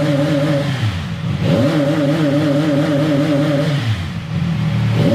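CFMoto 675NK's three-cylinder engine revved in neutral. The revs are held high against its neutral rev limit of about 6,000 rpm with a slight wobble, then drop off twice, about a second in and near four seconds, and climb back each time.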